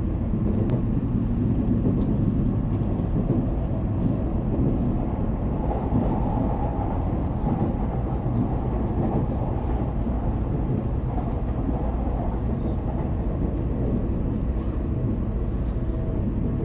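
Steady low rumble of a Tokaido Shinkansen train running, heard from inside the passenger cabin.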